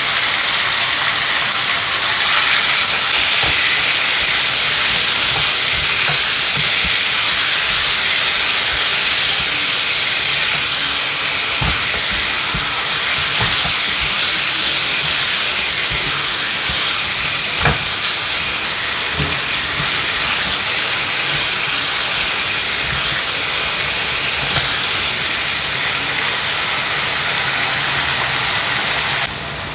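Food frying in hot oil in a pan: a steady, loud sizzle, with a few light knocks of a spoon or spatula against the pan as it is stirred. The sizzle drops off sharply just before the end.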